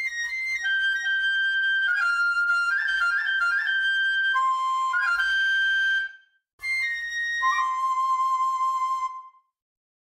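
Solo melody on a high-pitched instrument, held and quick notes in short phrases. It breaks off briefly about six seconds in, resumes, then stops again about a second before the end.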